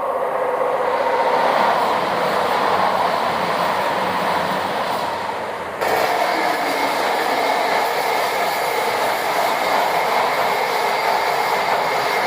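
A train passing through at speed: a loud, steady rush of wheel and rail noise. About six seconds in it breaks off abruptly and carries straight on as a similar steady rush.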